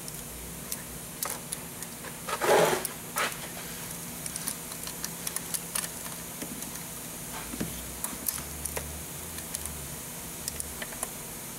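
Scattered light clicks and knocks of band clamp pliers and hands working spring clamps on a rubber intake hose, with one louder short rubbing scrape of the hose about two and a half seconds in.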